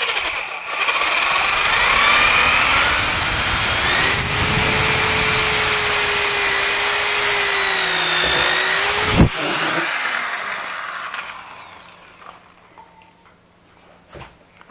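Bosch electric drill boring a screw hole through a wooden chair leg into the seat rail. The motor's whine rises as it speeds up and runs steady while the bit cuts. A sharp click comes about nine seconds in, then the whine falls away as the drill winds down.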